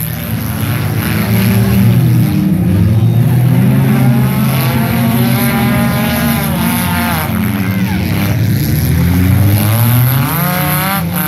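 Engines of several demolition derby cars running and revving, their pitch rising and falling over and over as the cars manoeuvre.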